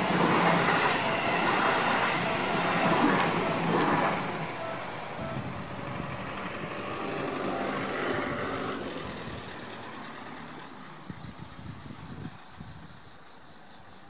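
Electric commuter trains, among them a Seibu 20000 series set, passing at close range: a loud, even rumble for the first few seconds that fades away steadily as they move off, with a few light knocks about eleven to twelve seconds in.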